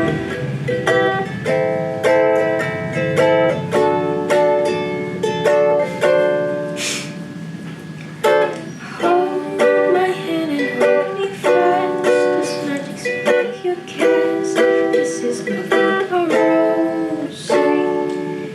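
Ukulele being played, plucked chords ringing one after another at a steady pace.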